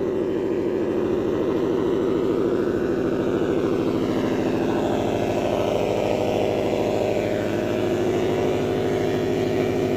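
Modified turbocharged Subaru flat-four engine, fitted with big 2400cc injectors, running steadily at idle; it is loud.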